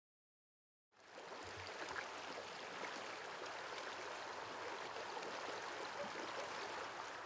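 Silence for about a second, then the steady sound of a stream of water flowing.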